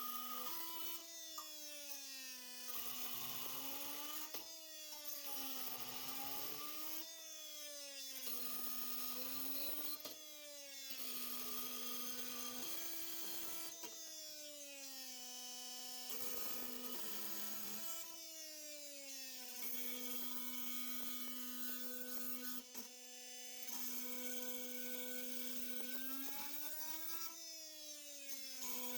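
Milwaukee M18 Fuel brushless oscillating multi-tool on its automatic speed setting, cutting through nails with a new blade. Its buzzing whine rises in pitch as the blade bites into a nail and drops back between cuts, over and over every couple of seconds.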